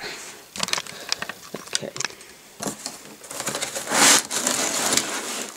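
Cardboard packaging of a laptop box being opened and handled: flaps and inserts rubbing, crackling and clicking against each other and the foam packing, with a louder scrape about four seconds in.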